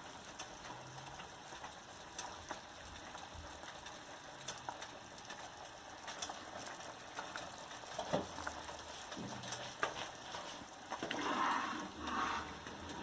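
Thick masala curry boiling in a pan on a high flame, with scattered small pops and clicks as spoonfuls of gram-flour dough dumplings are dropped in. A louder noisy rush comes near the end.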